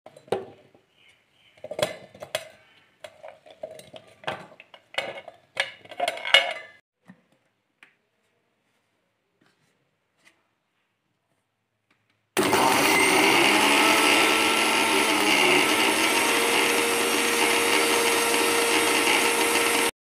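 Onion chunks knocking and clattering into a stainless-steel mixer grinder jar. After a pause, the electric mixer grinder's motor runs steadily for about seven seconds, grinding the onions, then cuts off abruptly.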